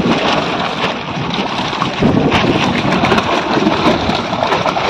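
Many fish thrashing and splashing in shallow water trapped inside a drag net pulled against the bank: a dense, continuous patter of splashes.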